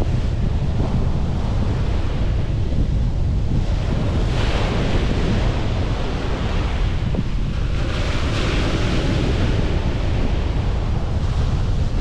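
Ocean surf breaking and washing up the beach, with wind rumbling steadily on the microphone. The wash of the waves swells twice, about four seconds in and again about eight seconds in.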